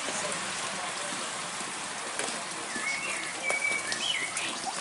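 Steady rain falling, with scattered sharp drips. About three seconds in, a bird gives a few short chirping calls.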